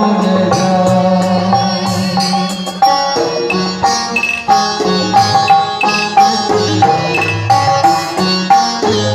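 Indian-style instrumental music: a plucked-string melody over drums. It opens with long, gliding held notes, and from about three seconds in moves to sharply struck notes on a steady beat.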